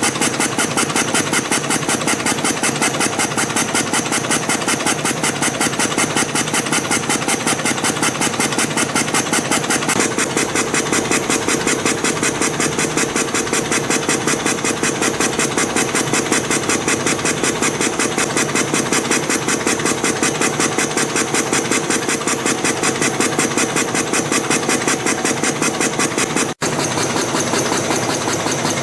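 CNC spring coiling machine running, feeding and coiling fine 0.3 mm wire into compression springs with a fast, even mechanical clatter. The sound cuts out for an instant near the end.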